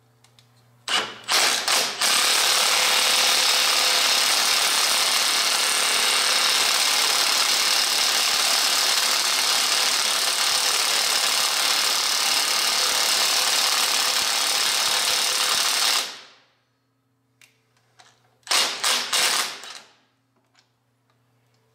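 Cordless impact wrench hammering: two short bursts, then a steady run of about fourteen seconds that cuts off, then a few short bursts near the end.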